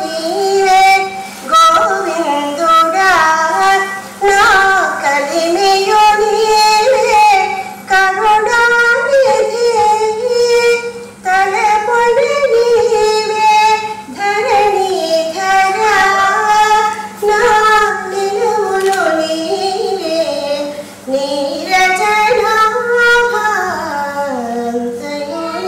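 A woman singing a devotional prayer song solo and unaccompanied, one melodic line gliding and stepping between notes, over a faint steady hum.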